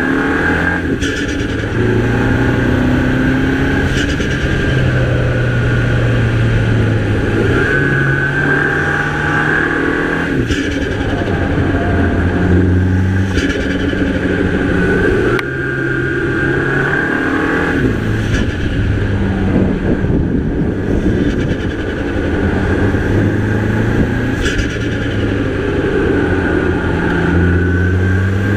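A Mini Cooper's 2.0-litre turbocharged four-cylinder engine pulling hard through the bends: the note climbs under acceleration and drops back at gear changes and lift-offs, several times over.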